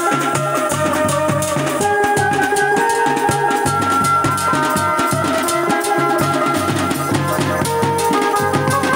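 Dhumal band playing live: a held lead melody over a fast, steady beat of bass drum, small hand drums and cymbal, amplified through horn loudspeakers.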